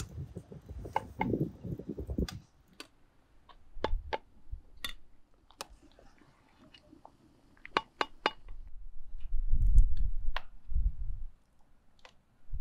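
Metal slotted skimmer clinking and scraping against an enamel soup pot as it is dipped into the boiling soup, giving irregular sharp clicks. Bursts of low rumbling at the start and again about nine seconds in are the loudest sounds.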